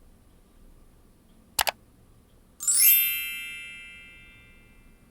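A single shot from a Weihrauch HW 110 T pre-charged air rifle, a short sharp double crack about one and a half seconds in. About a second later comes a bright metallic ring that fades away over about two seconds.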